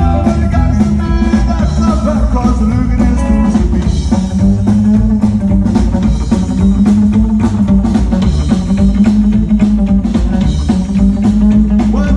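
Rockabilly band playing live through a PA: electric guitar lines over upright double bass and drums, loud and continuous, an instrumental stretch with no singing.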